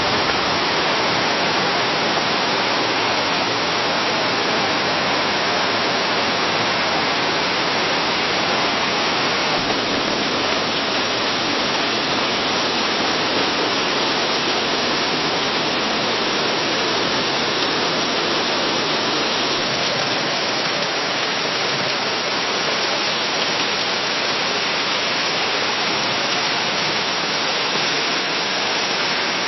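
Steady rain falling in a forest, a dense, even hiss of drops on foliage with no single drop standing out.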